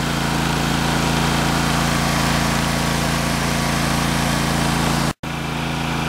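Ditch Witch walk-behind trencher's small gasoline engine running steadily under load while the machine digs a trench. The sound cuts out for an instant a little after five seconds in.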